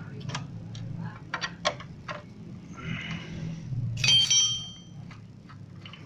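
Small metal clicks and taps of a T12 tool working on a motorcycle brake caliper, with a short scrape and then a ringing metallic clink about four seconds in, over a low steady hum.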